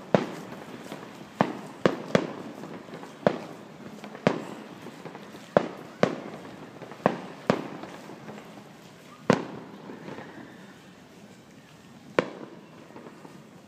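Fireworks shells bursting in the sky: about a dozen sharp bangs at irregular intervals, each with a short echoing tail. The bangs come thick in the first half and thin out, the last about twelve seconds in.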